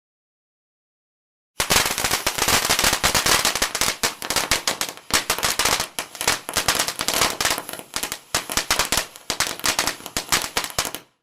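A string of firecrackers going off in a rapid, dense run of sharp bangs. It starts about a second and a half in and stops abruptly near the end.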